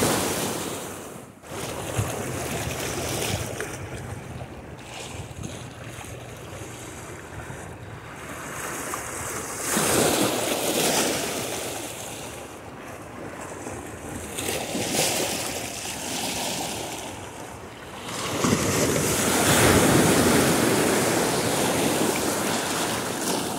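Sea surf breaking and washing over shoreline rocks, swelling and receding several times.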